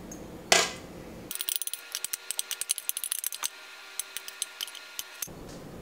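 A metal spoon clinking and scraping against a plastic canning funnel and a glass mason jar as thick pear butter is spooned in. After one louder clink, it becomes a rapid, irregular run of small clicks and taps, as if sped up.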